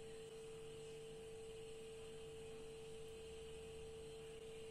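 Near silence: a faint steady hum over a low hiss of room tone.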